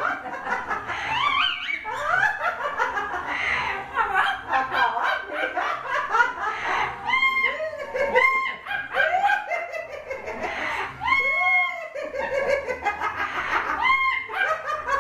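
Amazon parrot calling nonstop in a laugh-like chatter of rising and falling squawks, with several loud, high, arching calls near the middle.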